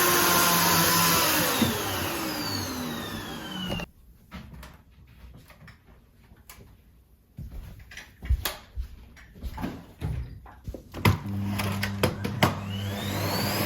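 Paper-bag vacuum cleaner motor switched off, its whine falling in pitch as it spins down; a few seconds of scattered knocks and clicks from handling the machine; then the motor switched back on, its pitch rising as it spins up near the end.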